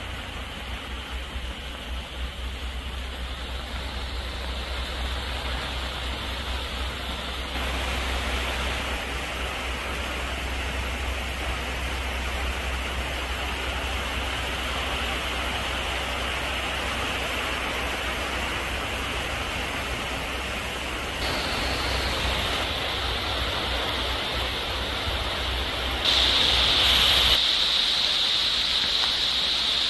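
Heavy downpour falling on forest foliage: a steady, dense hiss that gets louder in sudden steps about 8, 21 and 26 seconds in, over a low rumble.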